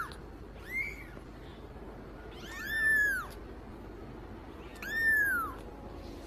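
Young kitten meowing: thin, high mews that rise and fall in pitch, a short one about a second in and two longer ones about two seconds apart.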